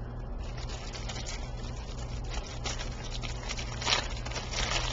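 Clear plastic bag crinkling and rustling as soft fabric bags are handled and pulled against it, with a few louder rustles in the second half.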